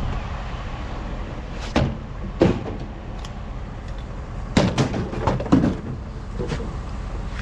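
A series of sharp knocks and clunks, one after another and then a quick cluster of them in the middle, over the low steady rumble of a vehicle.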